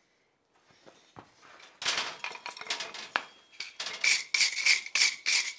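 Hand hammer striking the hot jaws of a pair of forged scroll tongs on a steel anvil: irregular metal clinks and knocks start about two seconds in, then settle into steady light blows about three a second, each with a metallic ring. The blows are setting and lining up the tong jaws after riveting.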